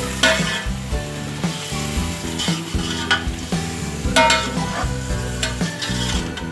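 Chicken and onion-yogurt masala sizzling in oil in a large pot while being stirred, the spoon scraping the pot every second or so. This is the bhuna stage, frying the masala until its water dries off.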